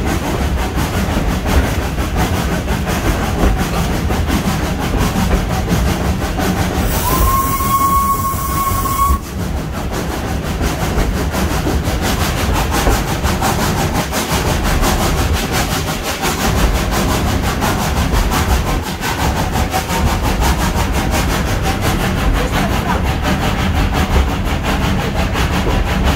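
Steam train running on the rails behind a 1927 SACM 0-4-0 tank locomotive, a continuous rumble and rattle. About seven seconds in, the locomotive's steam whistle sounds once for about two seconds, a single slightly rising tone that cuts off sharply; then the train runs on into a tunnel.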